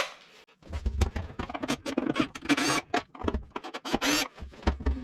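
Irregular clicks, scrapes and light knocks of a screwdriver bit and the carpet cleaner's plastic housing being handled, with a few dull thumps.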